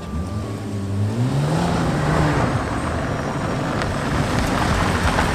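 Car engine accelerating, its pitch rising over the first two seconds and then holding steady, over a rushing noise.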